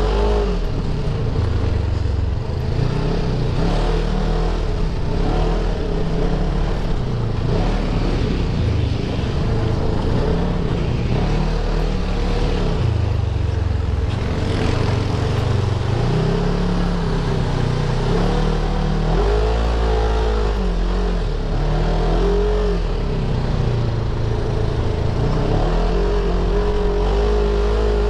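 Off-road side-by-side buggy engine running under load, its note rising and falling repeatedly as the throttle is worked over rough ground.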